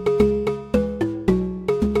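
Background music with a steady beat: short, quickly fading notes over a bass line.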